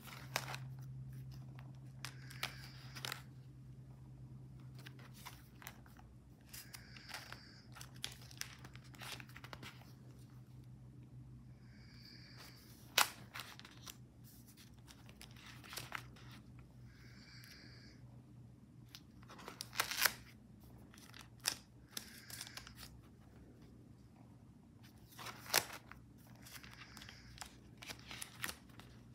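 Stiff magazine-collage pages of a coil-bound glue book being turned by hand: paper rustling and crinkling, with scattered sharp snaps and flaps as pages flip over, the loudest about a third and two-thirds of the way through.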